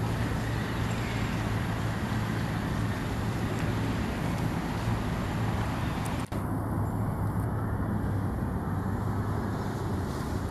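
Steady low engine rumble with a hum, as of motor traffic running nearby; it cuts out for an instant about six seconds in.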